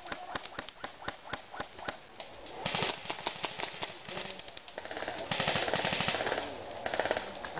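Airsoft guns firing: scattered single shots in the first half, then rapid full-auto bursts, the longest lasting about a second, a little past the midpoint.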